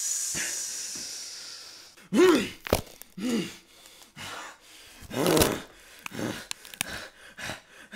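A man's voice groaning and gasping in pain, acted as a transformation into a monster, in short strained cries from about two seconds in. Before them a hiss fades away, and a few sharp clicks fall between the groans.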